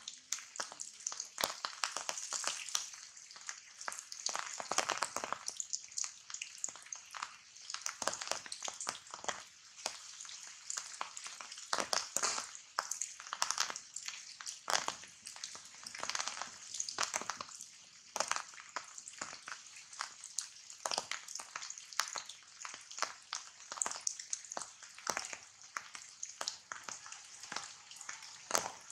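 Rain falling on leaves: an irregular patter of drop taps over a steady high hiss.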